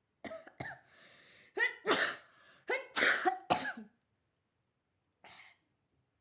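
A person sneezing, set off by a rolled paper twist tickling the nose: two short catching gasps and a drawn-in breath, then two loud sneezes about a second apart, and a small sneeze or snort near the end.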